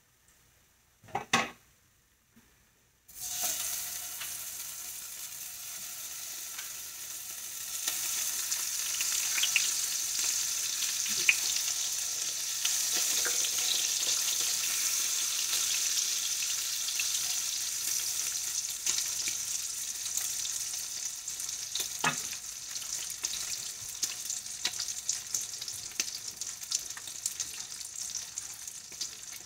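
Slices of Spam luncheon meat frying in hot oil in a nonstick pan. The sizzle starts suddenly about three seconds in, grows louder near eight seconds as more slices go in, then runs steadily. A short knock comes before it, and a few clicks of the wooden tongs.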